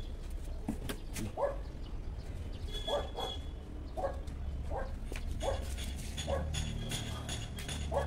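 A dog barking repeatedly, about one short bark a second, over a low steady rumble.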